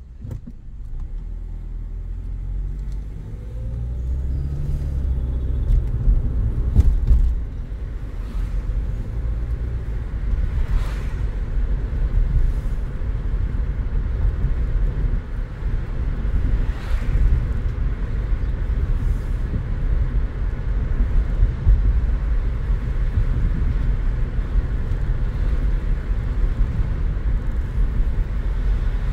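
Car pulling away and accelerating, heard inside the cabin: engine and road rumble rise over the first few seconds, then settle into a steady low tyre and road rumble while cruising.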